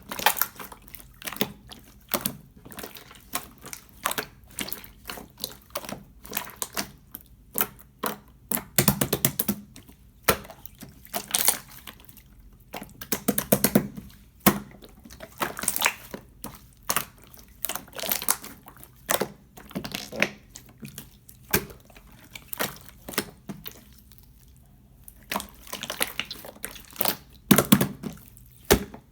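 Clear slime being squished and pressed by hand: a stream of irregular sticky clicks and small pops, sometimes in quick runs, with a short lull about three-quarters of the way through.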